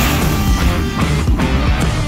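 Loud background music.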